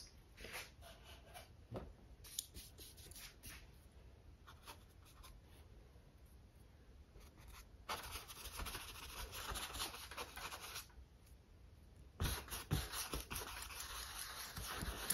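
Bristle filbert brush scrubbing a thin layer of acrylic paint onto a stretched canvas: soft scratchy strokes in two spells, about eight to eleven and twelve to fifteen seconds in, after a few faint ticks.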